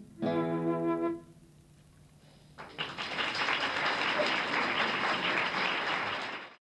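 Flute and classical guitar end the piece on a held final chord lasting about a second. After a short silence the audience breaks into steady applause, which cuts off abruptly near the end.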